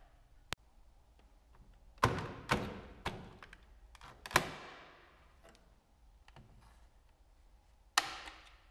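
Hard plastic knocks and clacks as a BMW R1100RT/R1150RT fairing mirror is worked loose and pulled off its mounts. There are four sharp knocks between about two and four and a half seconds in, and one more near the end.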